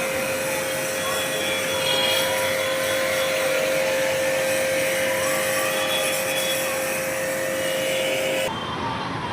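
A small machine running steadily, a constant hum under a loud hiss. A little before the end the sound changes abruptly and the high hiss drops away.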